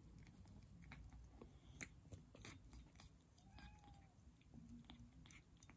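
Kitten chewing and smacking at food in a small dish: faint, irregular little clicks and wet mouth sounds.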